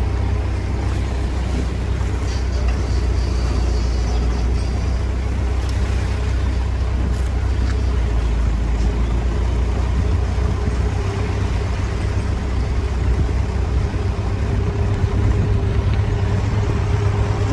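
A moving car's engine and road noise: a steady low rumble with a faint hum joining about ten seconds in.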